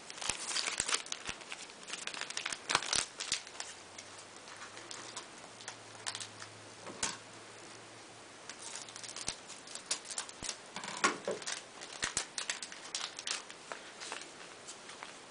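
Yu-Gi-Oh! trading cards being handled and leafed through: irregular soft clicks and rustles of cards sliding and snapping against each other.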